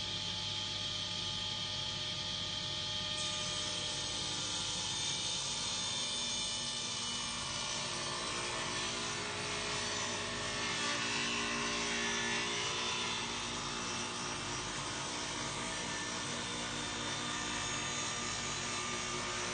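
Table saw running steadily, its blade cutting a wooden panel, with the hiss growing fuller for a few seconds in the middle.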